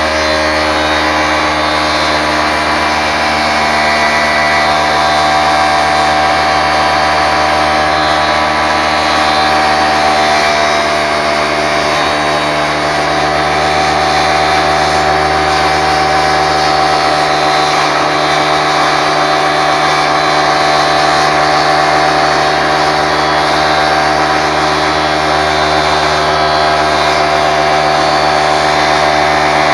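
Table saw with a fine-tooth Diablo blade running and slowly cutting a quarter-inch plexiglass sheet: a loud, steady motor tone with a hissy cutting noise over it.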